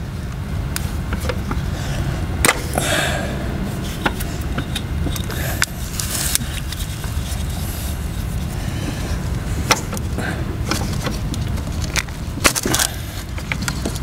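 Spark plug wire boots being pulled off an old ignition coil pack and pushed onto a new one: scattered sharp plastic clicks and short rubbing sounds of hands on the plastic coil pack and rubber boots, over a steady low rumble.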